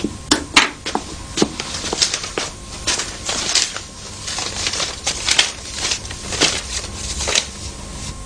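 A paper letter rustling and crinkling as it is handled and unfolded. The sound comes as irregular short crackles and swishes, several per second.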